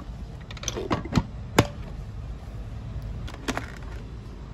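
Several short sharp clicks and knocks, the loudest about a second and a half in, from handling an electric rice cooker and pushing its mains plug into a power strip near the end.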